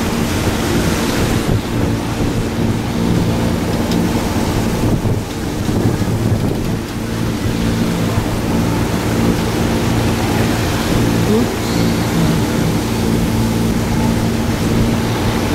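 Wind buffeting the microphone over the rush of ocean waves and wake, with a steady low drone underneath.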